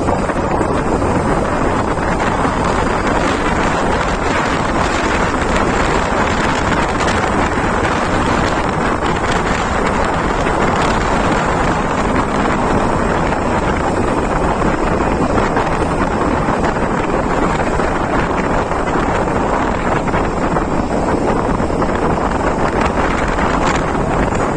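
Loud, steady wind noise on the microphone of a moving vehicle, with the vehicle's road and running noise underneath.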